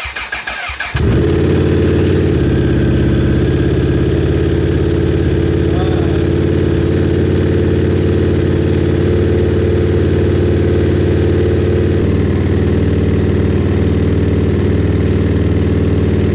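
Honda CBR1000RR inline-four motorcycle engine in an off-road buggy, cranking briefly, catching about a second in, then idling steadily.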